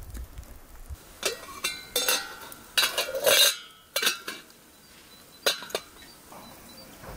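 Clinks and knocks of an enamel kettle lid and a glass of tea being handled and set down on it. About ten sharp strikes, the loudest cluster about three seconds in.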